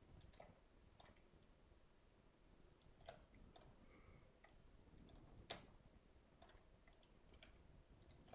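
Near silence with faint, scattered clicks of a computer mouse and keyboard, the loudest about five and a half seconds in.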